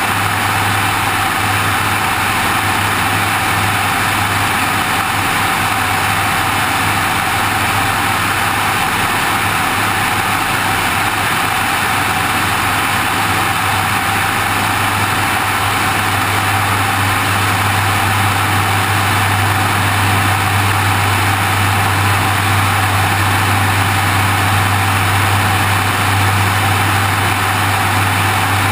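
Steady low drone of an aircraft in flight with a constant rush of wind, picked up by a camera mounted on the wing.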